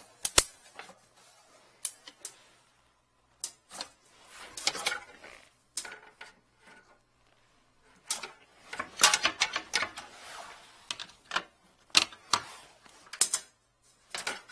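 Irregular clicks, clacks and rattles of a sewer inspection camera's push-cable reel and equipment case being handled, some in quick clattering runs.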